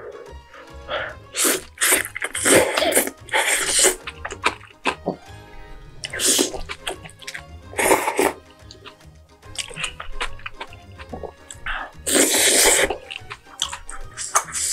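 Slurping and sucking in air while eating hot, spicy dumpling stew from chopsticks and a spoon. There are several loud, airy slurps and breaths, the longest about 12 seconds in, over background music.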